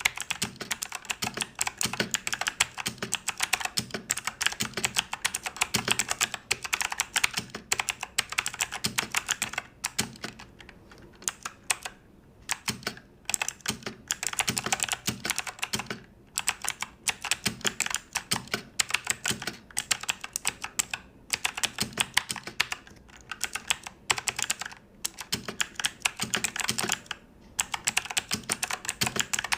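Fantech MaxPro MK851 full-size mechanical keyboard being typed on: a fast, continuous clatter of key clicks, broken by a few brief pauses, the longest about a third of the way in.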